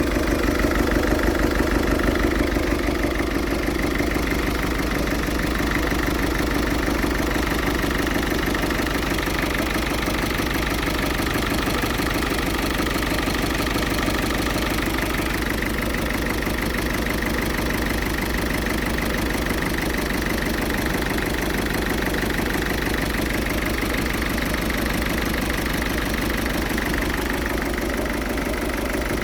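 Ford Fiesta 1.6 TDCi four-cylinder turbodiesel idling steadily, a little louder for the first few seconds. This is the rough idle the owner is trying to cure, and he is unsure whether it has improved.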